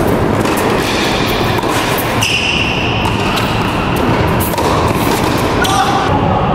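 Tennis rally in a large indoor hall: racket strikes and ball bounces over a steady background din, with a brief high squeal about two seconds in.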